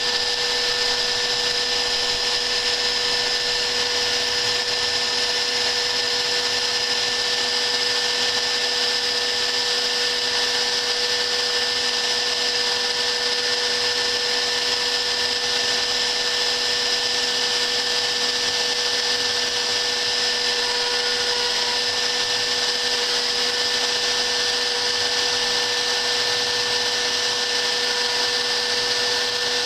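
Hobby CNC router spindle motor running at a constant speed, a steady whine over a hiss with no change in pitch.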